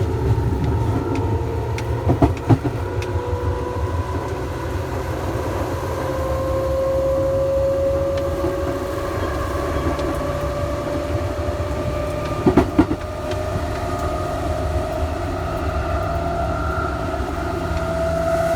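Electric train traction motor whine rising slowly in pitch as the train gathers speed, over a steady low running rumble. Two short pairs of wheel clacks over rail joints, a couple of seconds in and about two-thirds of the way through.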